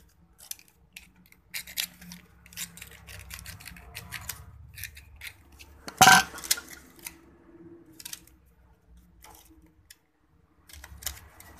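Hand-rewinding a power-tool motor armature: scattered small clicks, scrapes and rustles of copper wire and tools being handled, with one loud knock about six seconds in.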